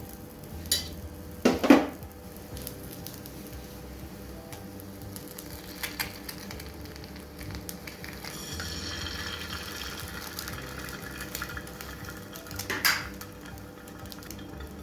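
Food frying and sizzling in a pan while it is stirred, with a few sharp clanks of a utensil against the cookware. The loudest clank comes about a second and a half in, and another comes near the end.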